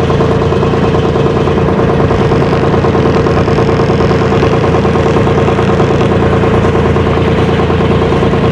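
Ferry boat's engine running steadily: a loud, even drone that does not change.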